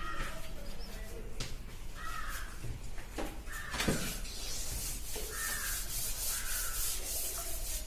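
Chalk writing on a blackboard, then a felt duster rubbing across the board from about halfway in, a dry, scratchy hiss. Bird calls sound several times in the background.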